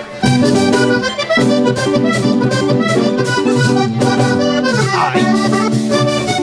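Button accordion playing a quick vallenato melody of rapid running notes over a steady lower line. It comes in sharply just after the start.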